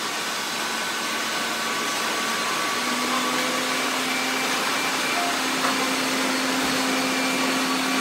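A fleet of about fifteen robot vacuums (Roombas, Neato, Eufy and others) running together, a steady mixed whir of suction motors and brushes with several steady hums in it. A lower hum joins about three seconds in.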